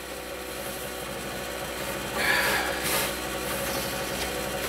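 Handling noise from a wooden cabinet: a brief scrape or rub, about a second long, around the middle, over a steady low hum.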